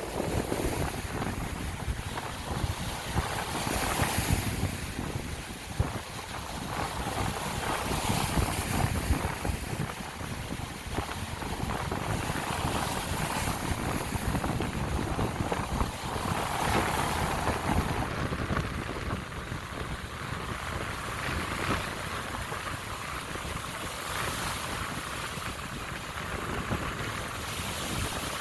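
Lake Michigan waves washing onto the shore, the surf swelling every few seconds, with wind buffeting the microphone underneath.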